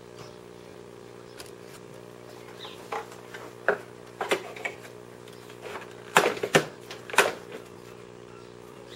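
Sharp plastic clicks and knocks from a canister vacuum cleaner's casing as its lid is unlatched and lifted to get at the dust bag, the loudest cluster a little past the middle. A steady low hum runs underneath.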